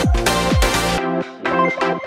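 Electronic dance music: a kick drum beats about twice a second over heavy bass. About a second in, the kick and bass drop out, leaving short, rhythmic synth chords.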